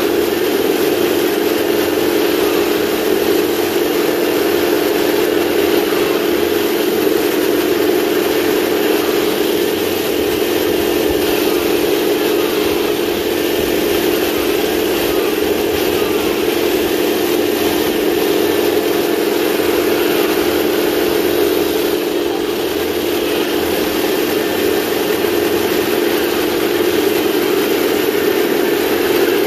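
1/16-scale RC tank sound unit playing a steady simulated tank-engine sound through its small speaker as the model drives, even in level throughout.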